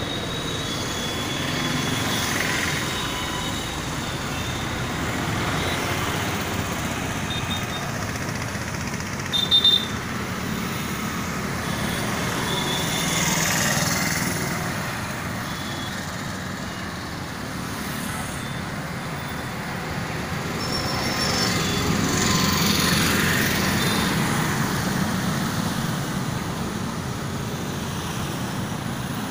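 Street traffic: a steady wash of passing motorcycles, scooters and cars that swells and fades as vehicles go by, with a short high horn beep about a third of the way through.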